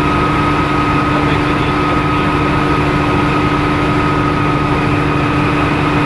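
Bell OH-13 Sioux helicopter in flight, heard from inside the cockpit: the piston engine and rotor give a steady, loud drone, with a constant whine running over it.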